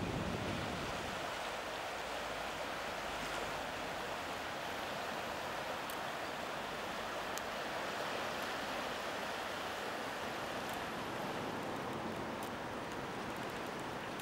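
Fast river water rushing steadily, a river in spring flood during ice breakup, with a few faint high clicks.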